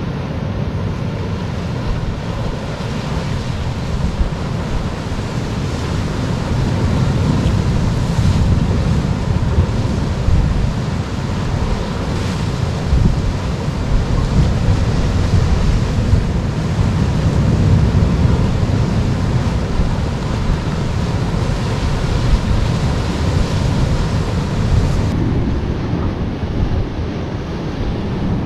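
Sea swell breaking and washing over granite rocks, with wind buffeting the microphone: a steady low rumble that swells and eases in slow surges. The sound changes abruptly about 25 seconds in.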